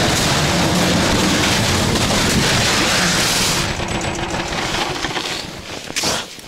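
Engine of a tracked motor-pusher (snow towing unit) running hard under throttle with a rapid pulsing note. It eases off about four seconds in and dies away near the end.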